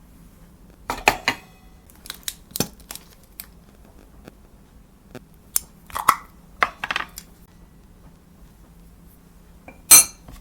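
Scattered light clinks and taps of utensils against metal cookware or dishes, about a dozen spread irregularly, with a sharper clink near the end.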